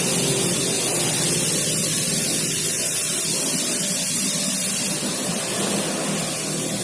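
Kärcher K2 pressure washer spraying water: a steady, loud hiss of the jet that eases slightly about five seconds in.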